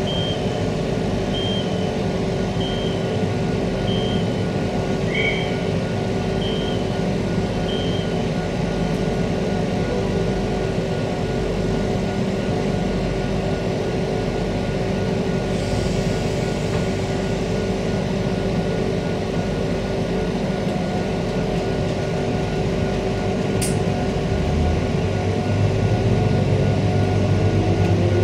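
Interior of a Queensland Rail electric multiple unit standing at a platform: a steady electrical hum from the onboard equipment. A short high beep repeats about every second and a half for the first several seconds. Near the end a low hum builds and a tone begins to rise as the ASEA traction equipment starts the train moving.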